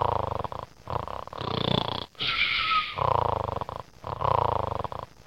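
A person snoring: a run of about five rough, fluttering snores in quick succession, with a hissing breath in the middle.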